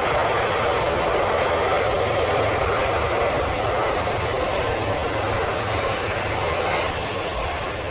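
Four-engine Boeing 747 jetliner's engines running at low thrust as it taxis and turns away, a steady jet rumble and whoosh that grows slightly quieter near the end.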